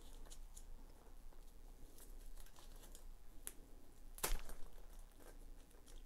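Handling noise from a leather handbag's top handle: its protective plastic wrap crinkles and the gold metal clip hardware makes small clicks as the clip is worked onto the side of the bag. One sharper click-crackle comes about four seconds in.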